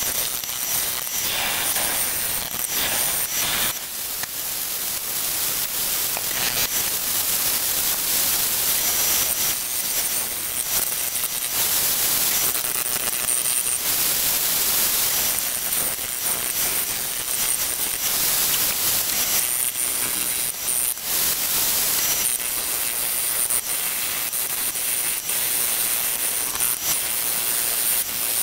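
Gouge cutting a spinning red mallee burl on a wood lathe: a steady hissing shear of wood, rising and falling in strength as the cut goes on.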